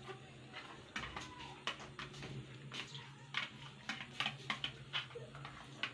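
Plastic pouch crackling in the hand as ghee is squeezed out of it into a pan: a run of sharp, irregular clicks that grows denser and louder about four seconds in, over a steady low hum.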